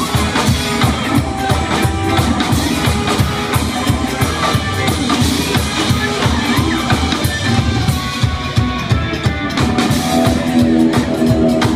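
Live rockabilly band playing an instrumental passage without vocals: a steady drum-kit beat with electric guitar and upright bass.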